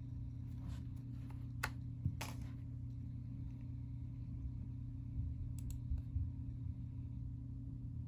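A few sharp clicks of an iBook's trackpad button as a disk image is opened, over a steady low hum.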